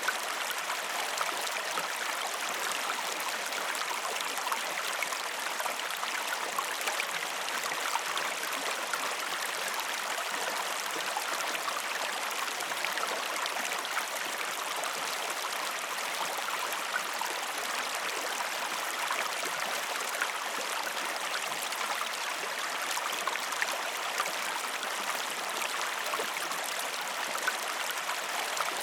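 Stream water running and burbling steadily over stones, a constant rush with many small splashes and gurgles.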